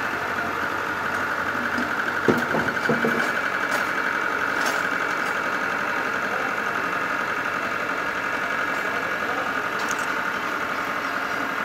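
1996 Ford Escort 1.6 four-cylinder petrol engine idling steadily, running with its new power-steering pump and V-belt just fitted.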